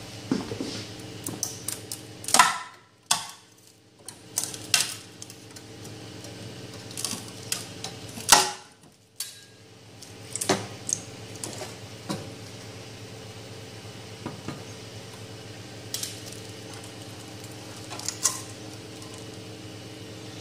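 A large ABS 3D print being prised off the heated print bed: a string of sharp cracks and clicks as the part breaks loose, the loudest a few seconds in and about eight seconds in, over the steady hum of the printer's fans.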